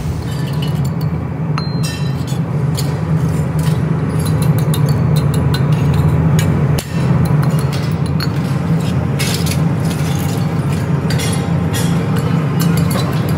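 Repeated sharp metallic clinks and taps as a hand tool knocks thin casting flash and runner scraps off freshly cast aluminium motorcycle wheel hubs, the broken pieces clattering on the floor. A steady low hum runs underneath.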